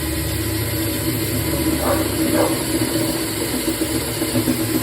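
Cordless power drill running steadily at high speed, boring a hole in metal. It is set in the fast gear, the wrong gear for metal, which should be drilled slow.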